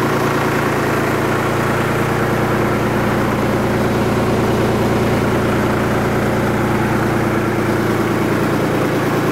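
Kubota B2261 compact tractor's three-cylinder diesel engine running steadily, with the front PTO engaged and turning.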